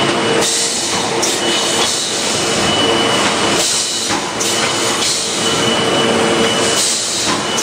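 Automatic juice cup filling and sealing machine running: a steady, loud mechanical din with a constant high whine, swelling slightly now and then.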